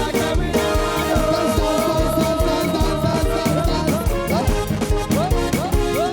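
Upbeat gospel dance music from a praise band, with a steady driving drum beat under sustained chords and short rising slides in the melody.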